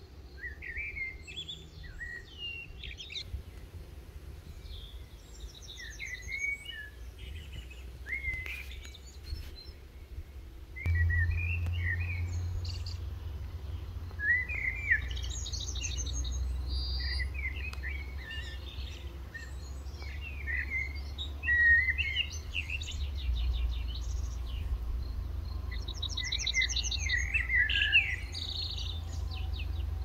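Songbirds singing and calling: many short chirps and whistled glides with quick trills, often overlapping. Underneath runs a steady low rumble that gets louder about eleven seconds in.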